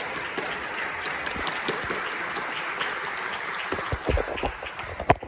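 Audience applauding. Near the end come several loud, dull thumps.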